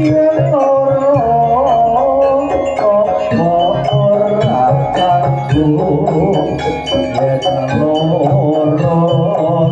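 Live jaranan gamelan music: drums and metal percussion keeping a fast, busy beat under a wavering, bending melody line.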